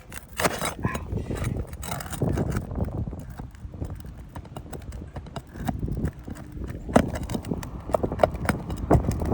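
Irregular knocks, clicks and scrapes from work on an asphalt shingle roof while shingles are pried up and their nails pulled, with a sharper knock about seven seconds in.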